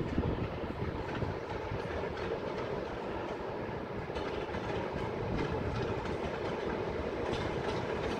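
ET2D electric multiple unit approaching: wheels rolling on the rails, with a faint clatter over the rail joints, growing gradually louder as it nears.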